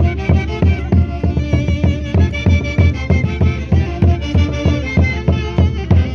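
Orquesta típica from Huancayo playing Santiago dance music: a melody over a steady low beat about twice a second.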